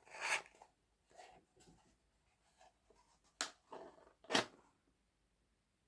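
Small cardboard box and packaging being handled and opened: a few short rustles and crinkles, with two sharper crisp sounds in the second half.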